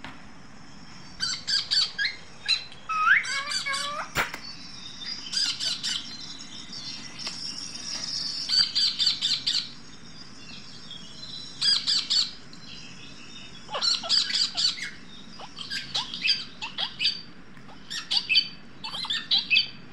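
Caged green parakeets squawking in quick clusters of short, shrill calls, several a second, with brief pauses between clusters.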